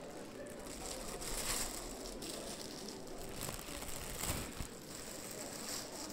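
Clear plastic sheeting being pulled off a seated person, rustling and crinkling irregularly with a few sharper crackles.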